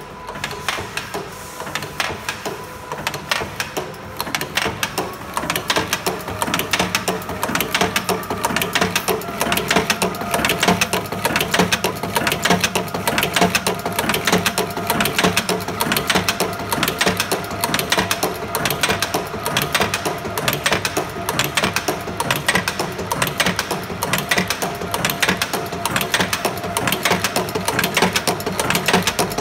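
Heuer DM5L double-blow cold header running, its tooling clattering in a rapid, even rhythm over a steady hum.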